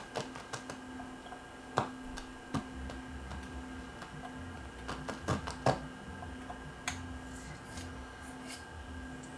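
Light, scattered clicks and taps from handling an open CD player on the bench, over a faint steady hum and a soft on-and-off pulsing tone.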